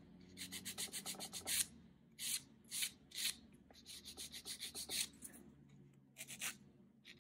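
Nail file rasping back and forth on a freshly sculpted acrylic nail, shaping it. Runs of quick strokes come with short pauses, and a few single strokes fall in the middle.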